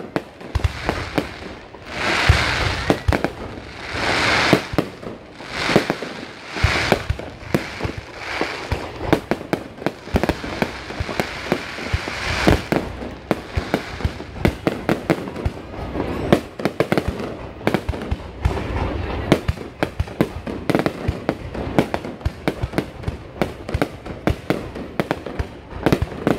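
Aerial fireworks display: a dense, continuous barrage of shell bursts and bangs. A few longer crackling swells come in the first half, and the bangs grow rapid and packed together in the second half.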